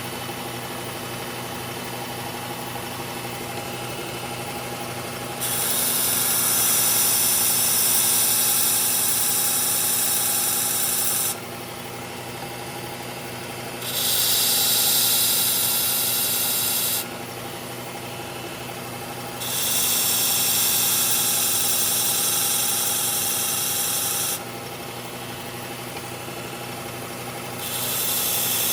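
Electric knife sharpener's motor running steadily, with four passes of a Gerber Propel Downrange blade grinding against the abrasive. Each pass is a loud high-pitched grinding hiss lasting about three to six seconds, with the plain motor hum between passes.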